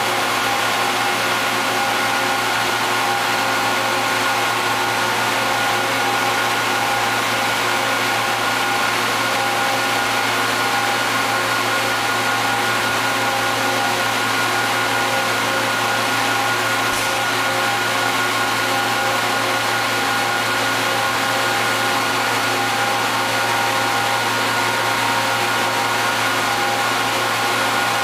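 Steady hum with a constant whine from a running Niigata HN100B horizontal machining center as a pallet slowly turns on its load station.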